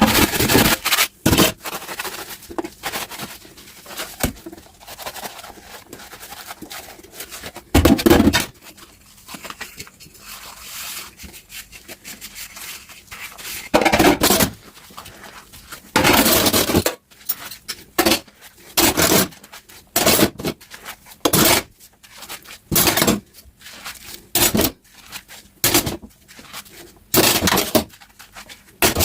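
Dishes being washed by hand: plates and cutlery clinking and scraping in irregular short bursts. In the second half the bursts come about once a second.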